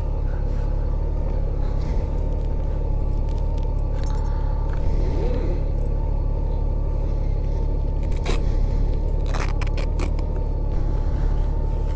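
Honda Gold Wing motorcycle engine running steadily at low speed, a constant low hum with a thin steady whine above it. A few brief clicks come in the second half.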